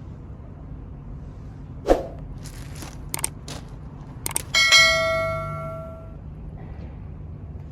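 A bell-like metallic ring, struck once after a few light clicks, ringing on and fading out over about a second and a half. A short sharp sound comes earlier, about two seconds in.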